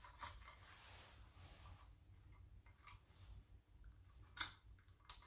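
Near silence with faint scattered clicks from handling a small makeup mirror as its plastic-rimmed head is fitted onto a metal stand, with one slightly louder click about four seconds in.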